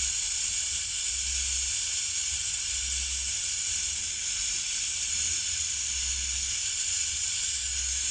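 Brazing torch flame hissing steadily while the copper pipe joints of a replacement refrigerator compressor are brazed.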